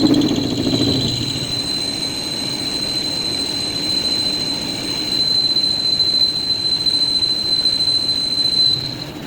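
Metal lathe turning steel, with a steady high-pitched squeal over a low rumble.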